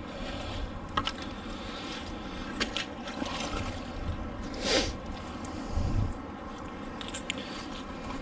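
Handling noises while magnet fishing: a few light knocks and scrapes, with one louder rushing noise about halfway through.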